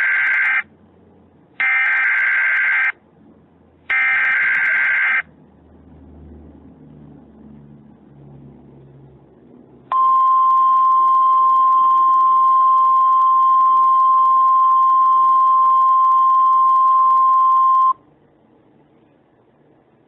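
Emergency Alert System broadcast tones: three short bursts of the SAME header's warbling digital data tones, each about a second long. About five seconds later comes a steady single-pitch attention tone lasting about eight seconds that cuts off sharply, signalling that an alert message follows.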